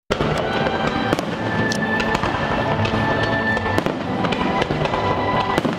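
Aerial fireworks going off in quick succession, many sharp bangs and crackles, over a show's accompanying music.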